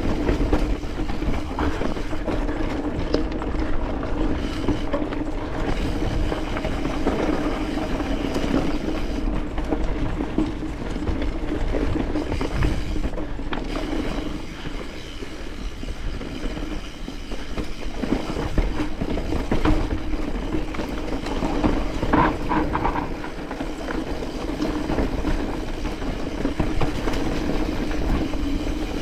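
Mountain bike clattering and rattling continuously over a rocky trail: tyres hitting rocks and loose stones, with chain and frame chatter.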